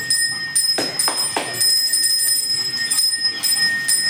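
A pooja bell rung continuously during Hindu worship: a steady high ringing kept going by rapid strokes, with a few sharper strokes about a second in.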